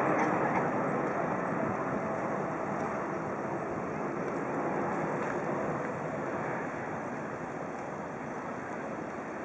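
Jet engine noise of a Boeing 777-300ER's two GE90 turbofans at climb power, heard from the ground as a steady rumbling hiss that slowly fades as the airliner draws away.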